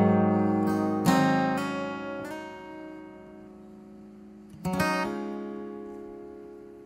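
Background music: the closing acoustic guitar chords of a song, a few strums each left to ring and fade, with a last chord struck about five seconds in and dying away.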